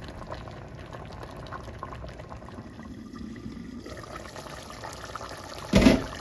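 Stainless steel pot of watery biryani masala boiling on the stove, a steady bubbling hiss. A short, loud knock just before the end is the loudest sound.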